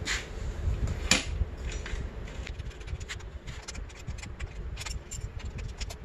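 Metal hand tools and bike parts clinking and scraping as they are handled: a couple of sharp clicks, then a run of small ticks and rubs. A fan runs with a steady low hum underneath.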